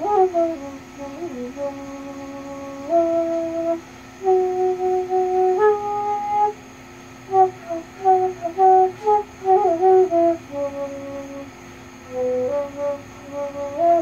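Side-blown bamboo flute playing a slow melody: long held notes, then a run of quick ornamented notes near the middle, and held notes again near the end. Underneath are a steady low drone and cicadas buzzing in the background.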